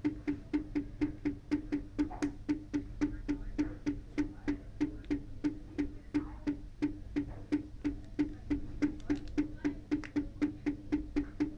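Stepper motor stepping at a slow steady rate, driven by a square-wave pulse train from a 555 through 74193/74138 logic ICs: a regular train of sharp clicking knocks, about four a second.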